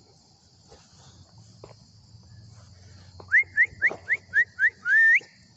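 Dog yelping: a quick run of about eight short, high, rising yelps, about four a second, starting some three seconds in, with the last one longer.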